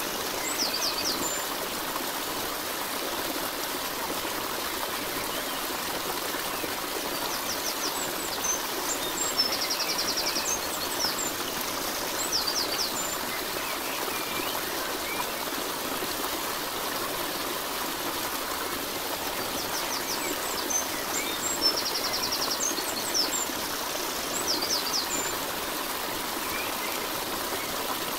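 Steady running water, with clusters of short high bird chirps that recur about every twelve seconds.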